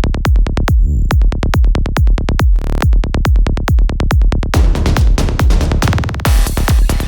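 Electronic dance music: a stripped-back, drum-machine-driven stretch of rapid, punchy percussive hits with heavy bass. A denser synth texture fills back in between the hits about four and a half seconds in.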